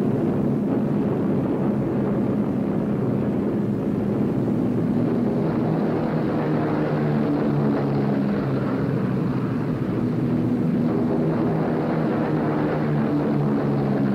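Propeller engines of a B-17 Flying Fortress bomber droning steadily in level flight, several low pitches held together.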